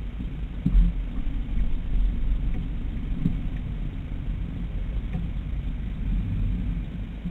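Mitsubishi ASX rolling slowly at low speed, a steady low engine and road rumble heard inside the cabin, with a couple of light knocks about one and three seconds in.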